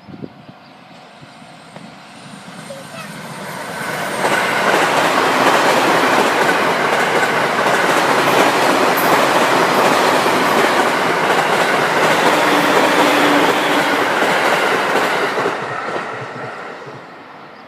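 A train approaching, passing over a level crossing with its wheels clattering on the rail joints for about eleven seconds, then fading away.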